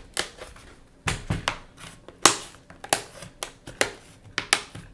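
Plastic clips of a Samsung Galaxy Tab 4 tablet's back shell clicking and snapping loose as the case is pried open: an irregular run of sharp clicks, about ten in all.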